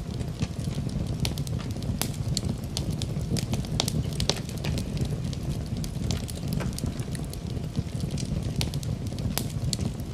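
Wood fire in a fireplace crackling, with many irregular sharp pops over a low steady rumble.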